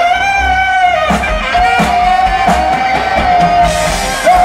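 Live rock band playing: drums, bass and keyboards under a lead line of long held notes that bend slightly in pitch, with a brief jump in loudness near the end.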